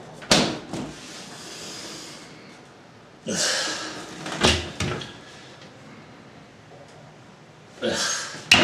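Kitchen door handling: a sharp knock, then a fridge-freezer door pulled open with a rustle and two knocks, and near the end a wooden cabinet door opened with a rustle and a sharp click.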